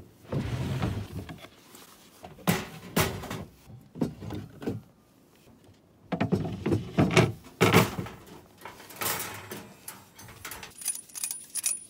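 Knocks, scrapes and clatter of a camp kitchen being set up on a pickup's tailgate: the truck-bed drawer handled, a plywood board slid and set down on the drawer boxes, and a two-burner propane camp stove put down with its lid and wind flaps opened. The loudest clatter comes about six to eight seconds in.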